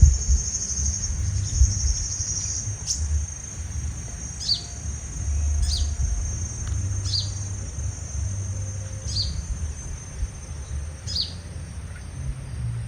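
Sunbird giving short, high, down-slurred calls, one every second or two, after a steady high trill in the first couple of seconds; the calls are typical of a parent sunbird calling near the trap where its young has been caught.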